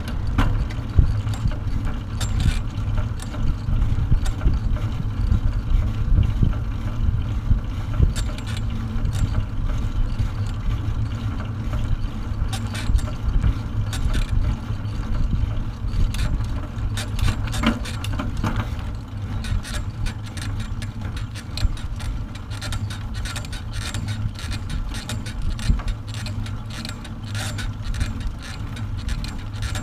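Wind buffeting the microphone of a camera mounted on a moving dog carrier, with a steady rumble and scattered rattling and clicking from the carrier over the paved path. The clicking grows faster and more even in the second half.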